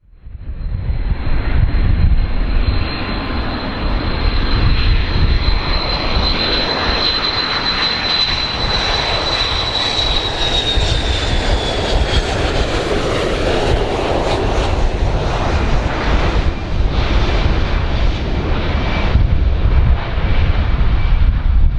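An airplane's engines running loud and steady, with a high whine that sinks a little in pitch and fades out about halfway through.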